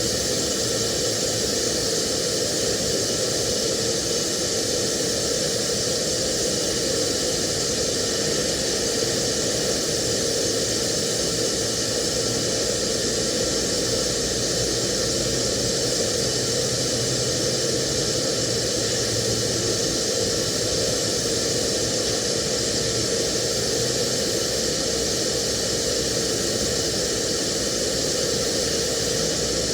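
TIG welding arc running steadily: an even hiss with a steady buzzing tone in it, unbroken throughout.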